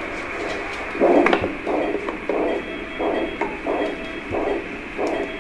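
Doppler ultrasound flow signal from the probe in the ligation proctoscope: a pulsing whoosh with each heartbeat, about one and a half beats a second, over a steady hiss. It is the sound of arterial blood flow in a hemorrhoidal artery. The loudest beat, about a second in, comes with a sharp click.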